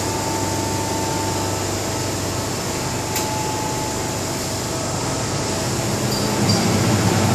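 Steady hum of an MTR M-Train car's air-conditioning and ventilation while the train stands with its doors open, with a faint steady whine and a single light click about three seconds in. A low rumble builds near the end.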